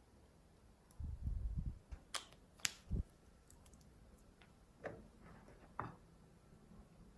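Glossy slime being handled and mixed by hand: a short stretch of low handling noise about a second in, then a few sharp clicky pops and two softer clicks later on.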